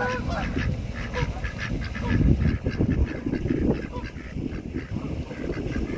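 Ducks calling with short, nasal quacks. A low rumbling noise underneath is loudest about two seconds in.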